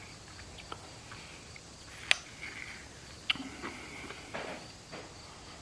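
A few faint, separate clicks and short soft scrapes of a spoon working in a bowl of shaved ice while it is eaten.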